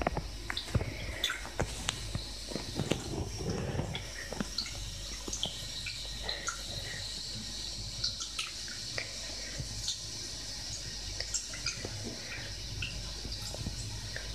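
Shallow bathtub water splashing and dripping in small, irregular plips as a cat paws and plays in it.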